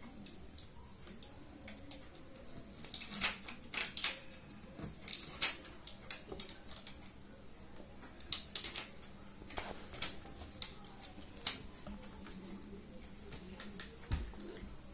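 Scattered, irregular light clicks and taps of fingers pressing tape and a thin circuit-board strip onto the plastic frame of an LED TV panel, with a dull low thump near the end.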